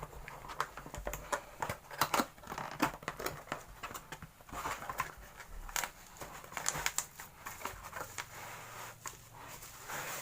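Plastic packaging crinkling and rustling as it is handled and opened, with irregular clicks and taps.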